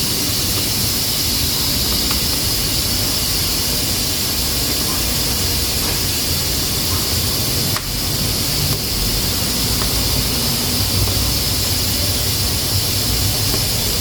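Pressure cooker steadily hissing steam from its valve while cooking beans, a sign it is up to pressure. A low rumble runs under the hiss.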